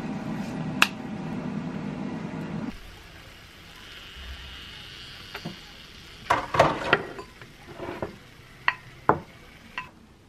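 Steady hum of a kitchen appliance for the first few seconds, with one sharp click, cutting off abruptly. Then a plate clattering as it is set on the counter, followed by a few separate sharp clinks of dishes and utensils.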